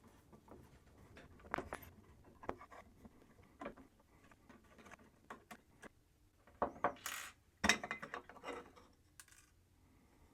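Small clicks, scrapes and metal clinks of hands working on a motherboard's M.2 heatsinks and their screws, with a sharper clink about seven seconds in.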